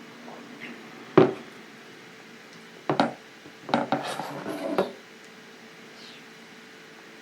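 A sharp knock, then another about two seconds later, followed by about a second of clattering clinks: hard objects being handled and set down.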